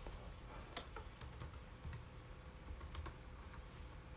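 Faint typing on a laptop keyboard: irregular, scattered key clicks.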